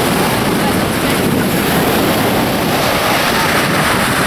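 Steady wind buffeting the microphone over the rush of choppy water.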